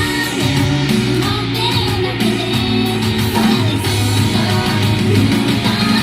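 Idol pop song performed live: a group of female voices singing over a loud, steady backing track.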